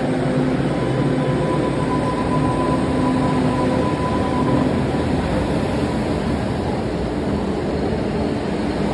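MBTA Green Line light-rail train moving along the platform: a steady rumble of wheels on rail, with a faint electric whine in the first few seconds.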